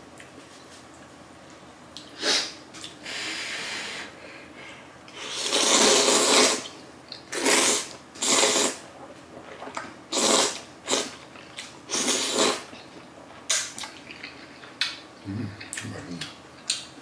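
Spicy jajang ramen noodles slurped in a string of short bursts, the longest and loudest about six seconds in, with quieter eating sounds between.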